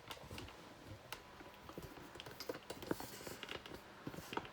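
Faint handling noise: scattered small clicks and light rustles, many in a row around the middle and near the end.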